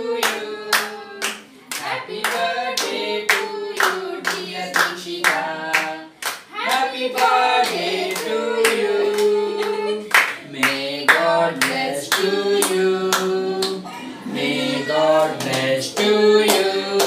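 A group of voices singing a birthday song together, with steady hand claps in time, about two to three claps a second.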